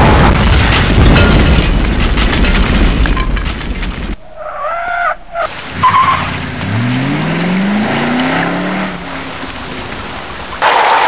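Sound-effect track of a storm chase: a loud roar of wind and rain with deep rumble, cut off suddenly about four seconds in, then a vehicle engine revving with rising pitch, and the loud storm roar returning near the end.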